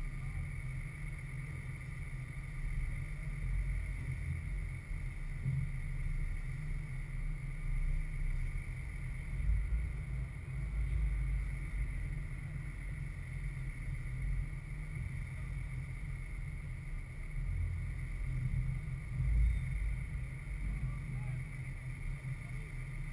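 Wind buffeting the camera microphone: an uneven low rumble that swells in gusts about halfway through and again near the end, with a faint steady high whine beneath it.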